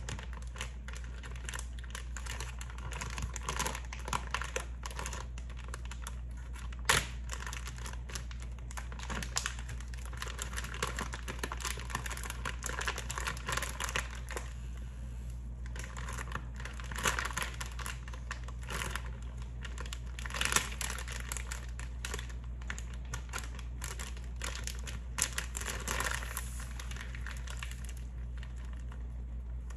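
Plastic Ziploc bag crinkling and rustling as it is handled and pressed down, with scattered sharp clicks and taps, over a steady low hum.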